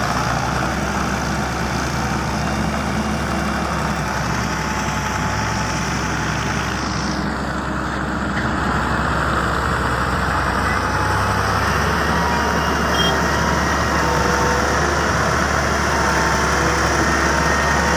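Heavy diesel earthmoving machinery running steadily, with a deep, continuous engine hum.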